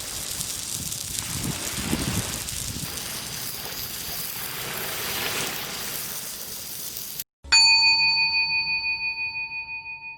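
An even rushing outdoor noise that cuts off abruptly, followed by a single bright bell-like ding that rings on and fades away over about three seconds.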